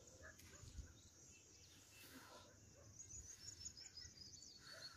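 Near silence: faint outdoor ambience, with a quick run of faint high-pitched chirps in the second half.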